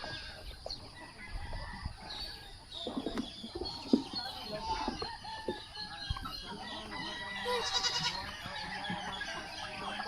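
Chickens clucking, with many short calls overlapping one another.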